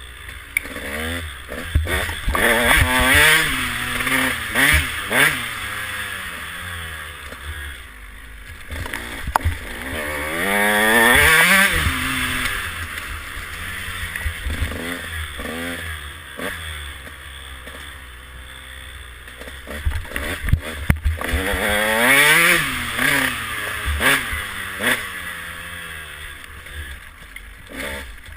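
2012 KTM 150SX two-stroke motocross bike engine being ridden, its pitch climbing and dropping over and over as the throttle is worked, with longer rising pulls about 3, 11 and 22 seconds in.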